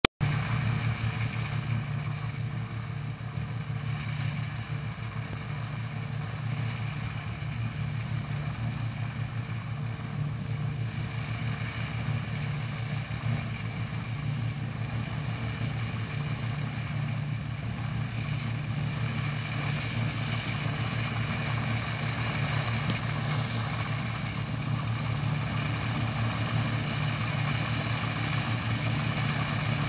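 Claas Medion 330H combine harvester working in standing wheat, its engine and threshing machinery giving a steady, unbroken drone that grows slightly louder as the machine approaches.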